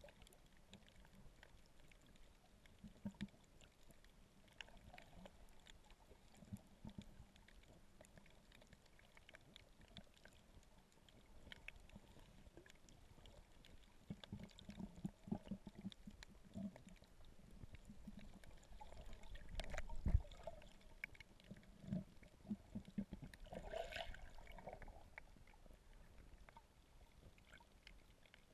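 Faint, muffled underwater water sound with scattered small clicks and low knocks, and one louder thump about twenty seconds in.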